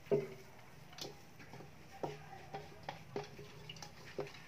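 Irregular light clinks and knocks of a utensil scraping against a stainless steel bowl while raw ground pork mixture is scooped out into a pan, some knocks leaving a short metallic ring.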